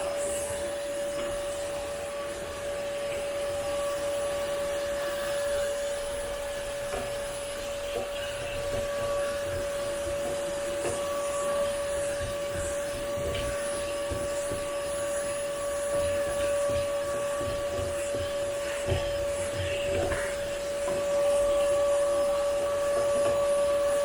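Vacuum cleaner running steadily with a constant motor whine, sucking up a pile of hair and dry soil, with a few faint ticks of debris going up the hose.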